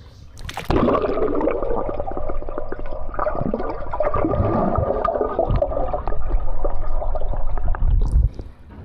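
Swimming-pool water: a sudden splash about half a second in, then several seconds of loud churning, bubbling and gurgling water close by, cutting off sharply near the end.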